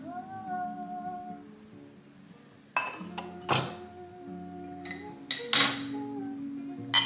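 Soft instrumental background music with plucked guitar-like notes. From about three seconds in, a few sharp clinks and knocks of kitchenware are heard over it.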